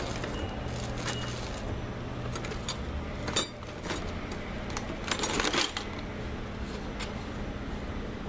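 A few sharp metallic clicks and clinks from pliers working small steel T-nails out of a wine barrel's hoops, with a short, denser clatter of metal about five seconds in.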